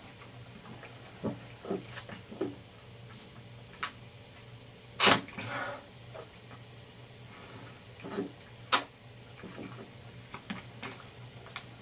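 A person gulping Diet Coke from a plastic bottle: a few soft swallowing sounds early on, a loud sudden sound about five seconds in, and a sharp click a little before nine seconds, over a low steady hum.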